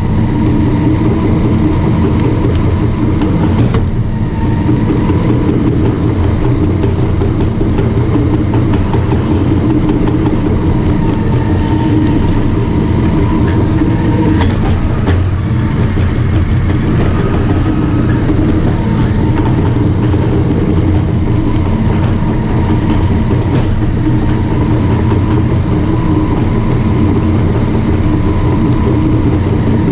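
Caterpillar D5 bulldozer's diesel engine running steadily and loudly, with a few sharp knocks near the middle.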